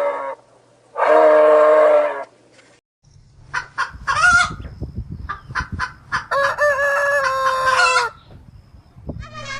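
A loud, drawn-out animal call in the first two seconds, then chickens clucking in short notes and a rooster crowing once for about two seconds, a little past the middle.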